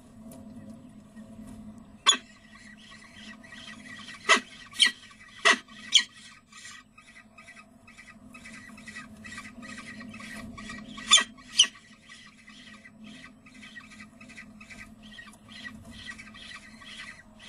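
Peregrine falcon chicks begging while being fed, a rapid run of short, high rasping cheeps that starts about two seconds in. A few much louder sharp calls stand out, and a steady low hum lies under it all.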